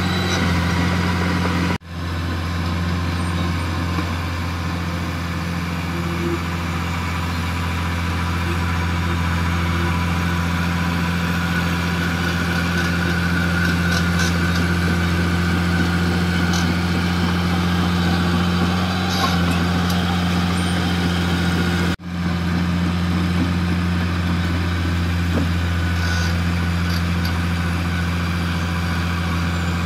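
Heavy-equipment diesel engine running at a steady, unchanging low drone. The sound cuts out for an instant about two seconds in and again about twenty seconds later.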